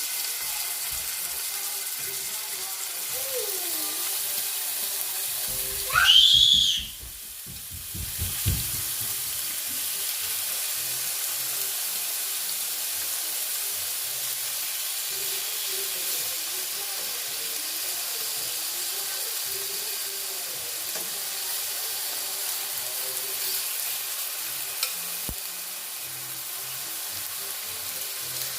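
Chicken breasts frying in hot vegetable oil in a pot, with a steady sizzle. About six seconds in, a brief loud sound rises sharply in pitch and is followed by a low knock.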